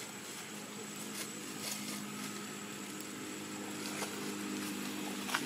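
A motor vehicle engine running steadily at a distance, its hum slowly growing louder toward the end, with a few faint clicks.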